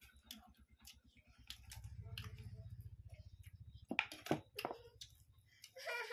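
Close-up eating sounds of people eating curry and rice with their hands: wet mouth clicks and smacks of chewing, with a few sharper clicks about four seconds in.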